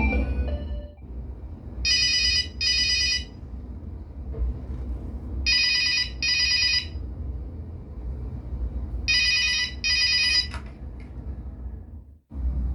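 An old telephone ringtone played through a Logitech Z906 speaker system: three double rings, each pair about a second and a half long and spaced about three and a half seconds apart, over a steady low hum.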